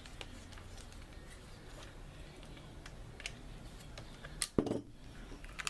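Faint clicks and taps of a screwdriver and the plastic hair dryer housing being handled while its screws are taken out, with a louder knock about four and a half seconds in.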